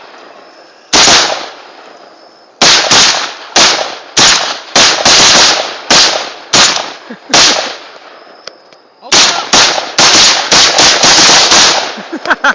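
An AK-47 and an AR-15 rifle firing, about twenty single shots at an uneven pace, each a sharp crack with a short echo. A quicker string of shots comes about three quarters of the way through.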